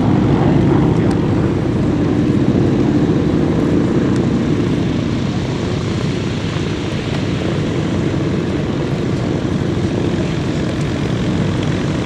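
North American Harvard trainer's 600 hp Pratt & Whitney R-1340 Wasp radial engine and propeller droning steadily. It is a little louder for the first few seconds, then eases off slightly.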